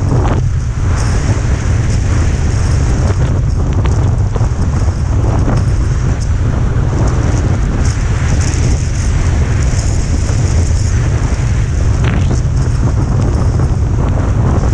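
Wind buffeting a helmet-mounted camera's microphone during a fast ski descent, a loud steady low rumble, with skis hissing and scraping over groomed snow.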